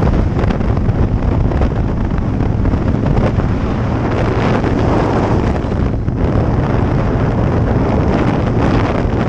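Wind buffeting the microphone of a motorcycle at highway speed, over the steady low drone of its engine.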